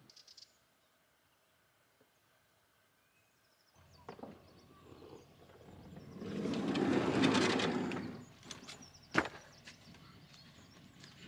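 A camper van's sliding side door rolling open over about two seconds, followed by a single sharp knock about a second later.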